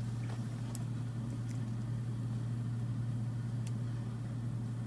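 Steady low background hum, with a few faint clicks as the plastic spring clamps and phone are handled.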